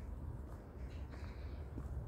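Outdoor forest ambience: a low, unsteady rumble of wind on the microphone, with a few faint clicks.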